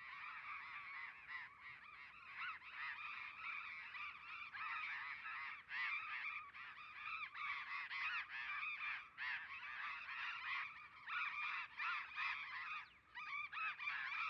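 A flock of birds calling without pause, many short overlapping calls.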